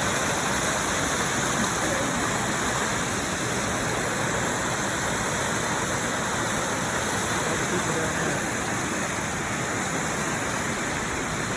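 Steady rush of falling water from Multnomah Falls, a large waterfall, heard close to the falls.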